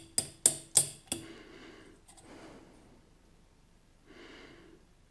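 Metal forks tapping and clinking against a stainless steel bowl of melted chocolate, about five quick clicks with a short ring in the first second, then faint breathing twice.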